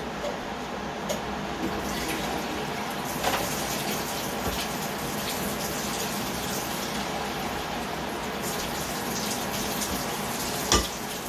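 Kitchen tap running steadily, with a few light clinks and one sharp knock near the end.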